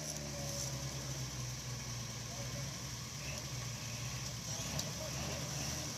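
Engine of a lifted four-wheel-drive truck running at a low, steady idle while the truck sits hung up on the boulders.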